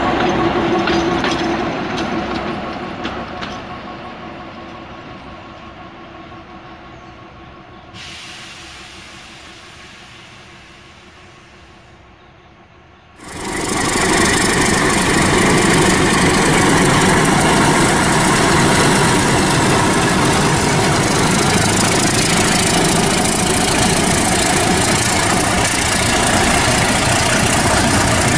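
Narrow-gauge diesel locomotive running past with its engine note, fading steadily away over the first dozen seconds. After a sudden cut, a diesel-hauled passenger train rolls past close by with loud, steady rumbling noise.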